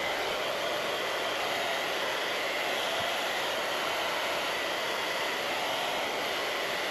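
Handheld hairdryer running steadily at full blast, a continuous hiss of blowing air with a faint motor whine, heating the gear-shifter's plastic lens cover to soften the adhesive beneath it.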